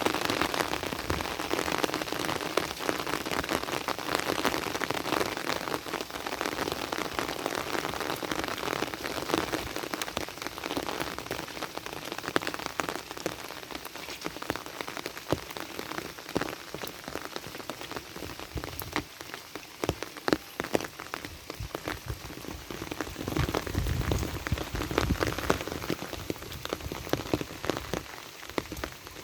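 Heavy rain falling steadily, with many separate drops striking a hard surface. It eases a little in the middle and swells again near the end.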